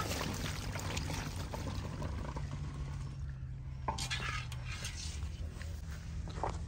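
Wet water chestnuts poured from a large metal cooking pot into a jute sack, a rustling, clattering pour, with a knock on the pot rim and a louder rush of nuts about four seconds in.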